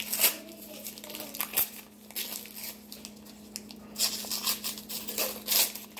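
Paper wrappers being peeled and torn off ice cream sandwiches by hand, in irregular crinkling rustles.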